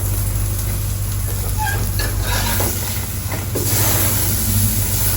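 Beef burger patty sizzling in a hot frying pan over a steady low hum, with a few light clicks of a utensil; the sizzle grows louder about three and a half seconds in.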